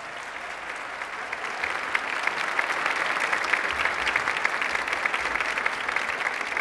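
Audience applauding, the clapping swelling over the first few seconds and then holding steady.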